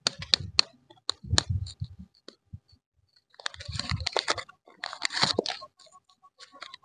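Lollipop wrapper being torn open and peeled apart by hand: sharp crinkles and clicks in the first two seconds, then two longer stretches of crinkling rustle past the middle.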